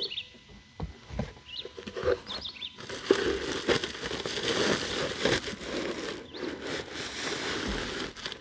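Rustling and crackling with many small clicks for several seconds, preceded by a few short high chirps.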